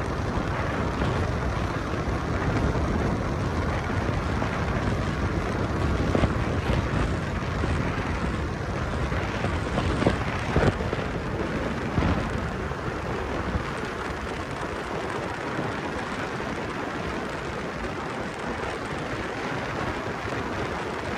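Wind rushing over the microphone of a car driving at highway speed, mixed with tyre and road noise. There are a few short thumps around the middle, and the low rumble eases somewhat about two-thirds of the way through.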